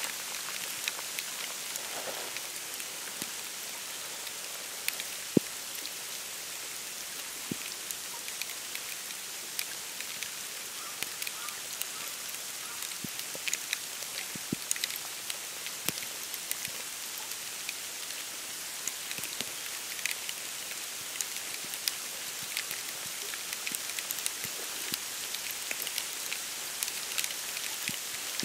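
Wet snow falling steadily onto dead reeds, bare branches and a wooden boardwalk, as a soft pattering hiss dotted with many small drips and ticks. One sharper tick comes about five seconds in.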